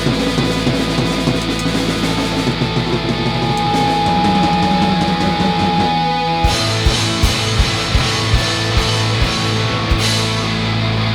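Instrumental rock band music with guitar. About halfway through there is a brief break, after which low drum hits come at an even beat of about two to three a second, with a cymbal-like crash where they begin and another near the end.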